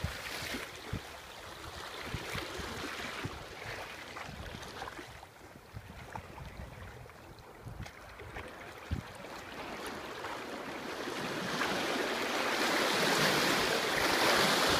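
Small ocean waves washing up on the beach, with wind buffeting the microphone in low thumps; the rush of surf swells louder over the last few seconds.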